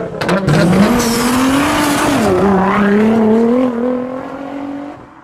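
Car engine sound effect accelerating: its pitch rises, drops once about two seconds in, then climbs again before fading out near the end.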